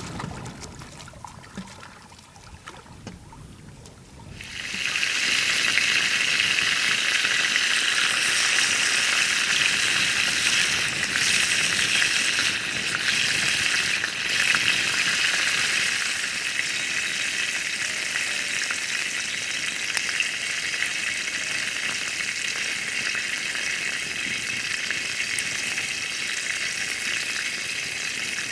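Food frying in hot oil in a pan, a steady sizzle that starts suddenly about four seconds in, as the food hits the hot pan. A few brief clatters come over it around the middle.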